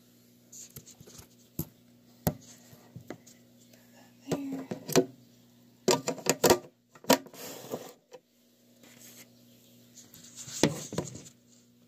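Handling noise of small plastic cups and containers being moved, tapped and knocked together while a feeder cricket is caught. It comes as scattered sharp clicks and clatters, in three busier clusters, with rustling from the phone being jostled.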